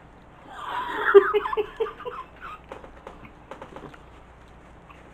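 A person giggling for about a second and a half, then faint scattered mouth clicks while chewing.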